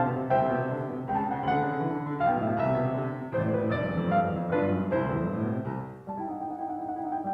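Background piano music, note after note in a gentle melody, with a brief dip in loudness about six seconds in before a new phrase begins.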